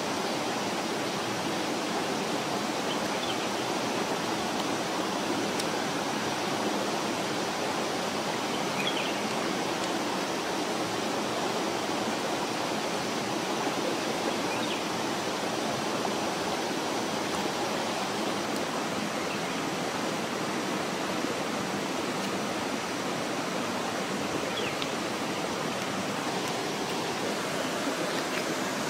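Steady, even rush of a forest stream running over rocks.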